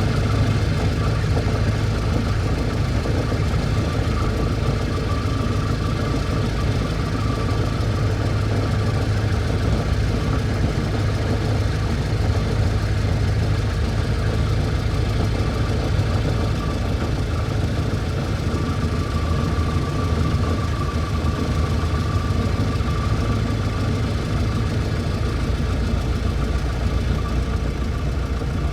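1924 Ford Model T's four-cylinder engine running steadily at an even speed.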